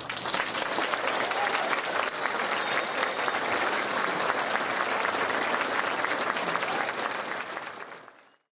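Audience applauding: many people clapping together at the end of a dance performance. The clapping fades out near the end.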